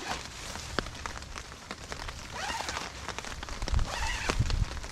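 Raindrops ticking on tent fabric. There are low bumps of handling or movement between about three and a half and four and a half seconds in, and two brief pitched squeaks.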